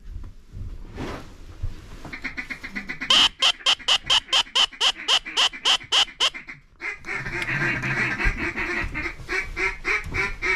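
Hunter's duck call blown in a loud string of about seventeen evenly spaced quacks, about five a second. It is followed by a faster, rolling chatter of short notes.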